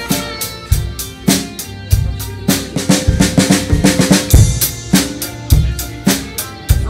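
Electronic drum kit played along to a rock backing track: a steady beat of bass drum, snare and cymbals, with a deep kick about every second and sharper strokes between, over the song's instruments.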